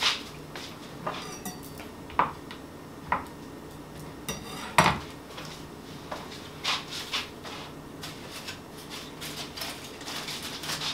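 Kitchen handling sounds: scattered light clinks and taps of utensils and dishes, with a brief rustle of aluminium foil and one louder knock about five seconds in.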